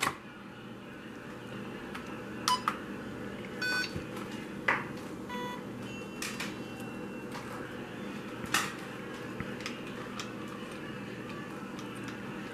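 Carrera Digital 132 slot-car system being programmed: a few short electronic beeps from the control unit around four to six seconds in, among sharp plastic clicks as the car is handled on the track, over a steady low hum.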